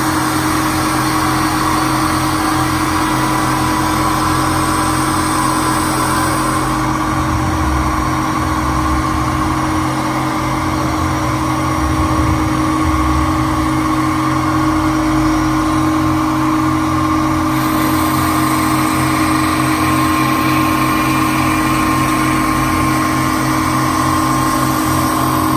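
Electric motor of a machining rig running steadily, a constant low hum with a higher whine above it. A high hiss drops away about seven seconds in and comes back around eighteen seconds.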